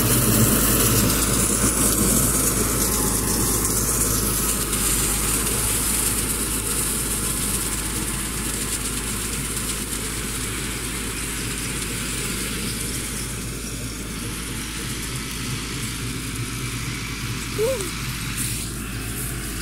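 Massey Ferguson 385 tractor's four-cylinder diesel engine running steadily as it pulls a mower through straw, growing gradually fainter as the tractor moves away. A brief high chirp rises and falls near the end.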